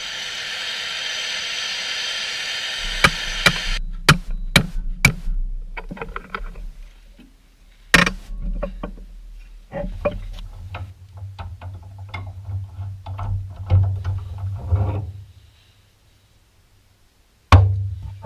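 Workshop work on metal parts: a steady hiss at first, then a series of sharp clicks and knocks with one loud strike about eight seconds in, and a low hum under more clicking before a short quiet.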